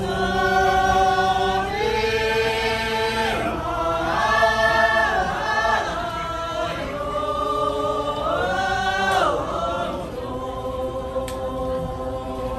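A group of voices singing or chanting together in long held notes that slide up and down from one note to the next.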